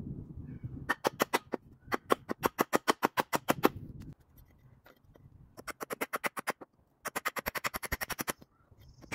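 A hammer striking nails into a wooden board in rapid runs of many blows a second, in four bursts.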